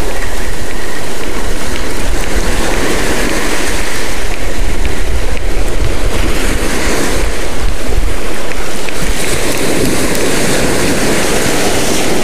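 Small surf waves washing up on a sand beach, with wind buffeting the microphone in a steady low rumble.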